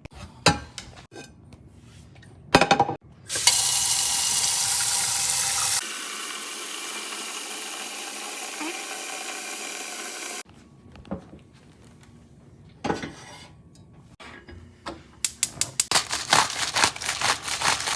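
Kitchen tap running for about seven seconds, its sound changing abruptly partway through. Scattered knocks and clatter before and after, and a quick run of rattling clicks near the end.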